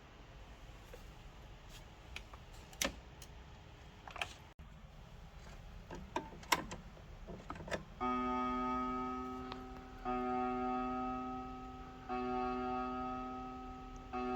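Sinix 523 pendulum wall clock: a few scattered mechanical clicks, then the clock begins striking about halfway through. Four strikes come about two seconds apart, each ringing on with a slowly fading metallic tone.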